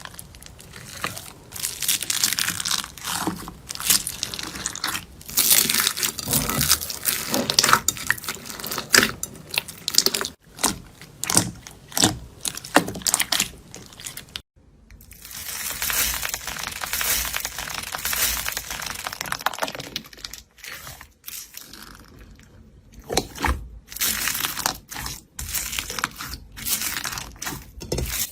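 Hands squeezing, poking and stretching slime: a dense run of irregular crunching and crackling pops, with a brief break about halfway through.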